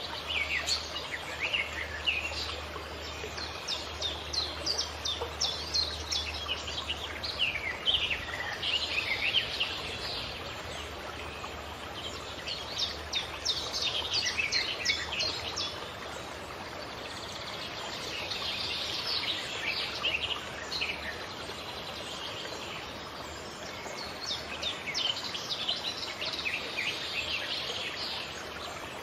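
Songbirds chirping and singing in quick trills that come in clusters every few seconds, over a steady background hiss. A low rumble sits under the first several seconds.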